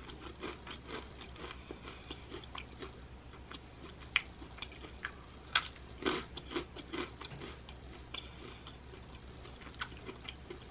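A person chewing a crunchy, dry breadstick close to the microphone: a steady run of small crunches, with a few sharper, louder cracks around four to six seconds in and once more near the end.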